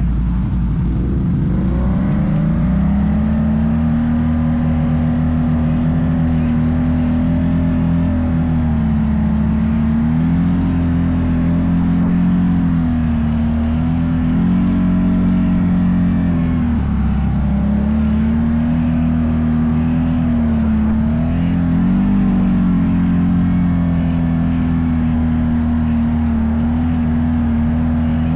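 Off-road vehicle engine running under throttle. Its pitch climbs about two seconds in, then holds steady with several short dips and rises as the throttle is eased and opened again.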